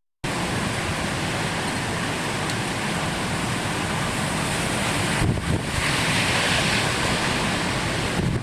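Typhoon wind and heavy rain, a steady rushing noise with wind buffeting the microphone. The hiss swells briefly about six seconds in, as a gust or heavier burst of rain.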